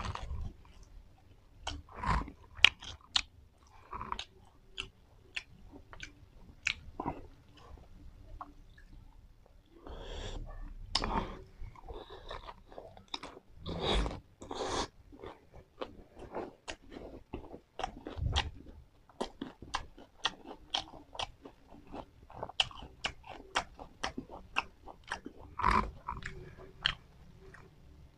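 Close-up chewing and crunching of a lettuce-leaf wrap of crepe and fresh herbs: a steady run of irregular crisp crunches and mouth clicks, with louder bites about 2 s, 11 s and 14 s in and near the end.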